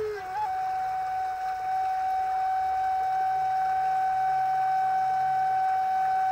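Wooden Native American-style flute playing a melody. A lower note ends, a quick grace note follows, and then a higher note is held long and steady.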